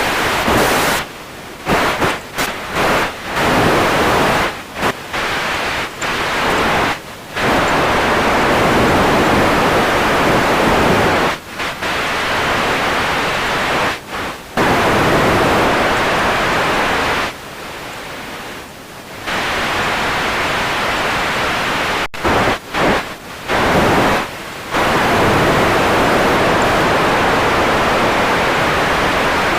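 Radio static: a loud hiss that keeps cutting out and dropping in level abruptly, chopped in quick succession in places, with longer steady stretches in between.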